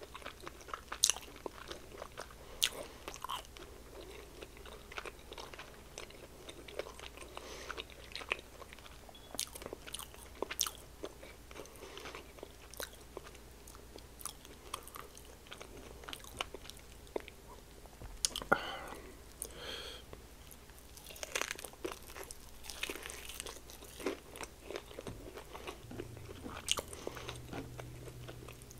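A person chewing breaded fried chicken wings close to the microphone: wet mouth clicks, smacks and crunches, with denser, louder chewing in stretches past the middle.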